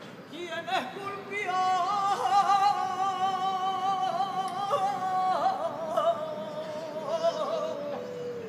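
A woman singing a saeta solo, the flamenco-style devotional song sung to a passing procession image: long held notes with a quivering vibrato and ornamental turns, the line sinking lower near the end.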